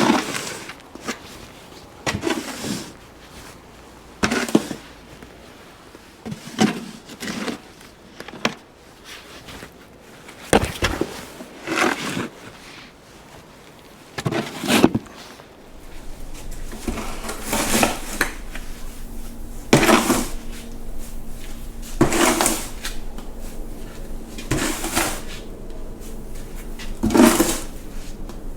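Snow shovel scraping and swishing through deep snow in repeated strokes, about one every two seconds. A faint steady hum joins about halfway through.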